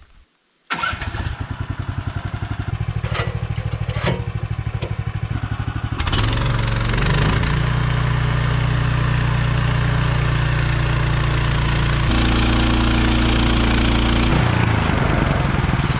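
Portable band sawmill's gasoline engine. It comes in abruptly about a second in and runs at low speed with a pulsing beat. About six seconds in it goes up to a steady high throttle to drive the blade, then drops back near the end.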